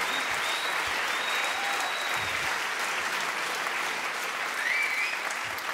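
Theatre audience applauding steadily, with a few thin high whistles over the clapping, which eases off a little near the end.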